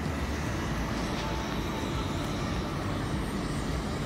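Steady low rumble with a hiss, even throughout and without any distinct event.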